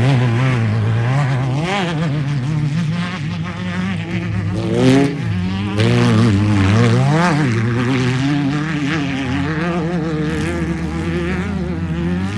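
Off-road race vehicle engines running hard, several at once, their pitch rising and falling repeatedly as they rev through the gears and lift off.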